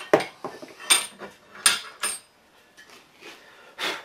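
A handful of sharp metal clinks and knocks, each with a brief ring: a wrench and clamp hardware against the cast-iron drill-press table as the clamped brass strut is loosened and lifted off.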